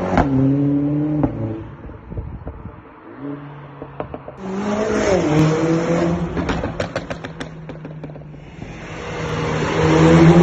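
Mercedes-AMG CLA 45 S turbocharged four-cylinder with an Akrapovic exhaust, accelerating hard with the pitch gliding through the revs. About four seconds in it comes back loud, followed by a quick run of sharp pops and crackles from the exhaust, then fades and rises again near the end as the car comes closer.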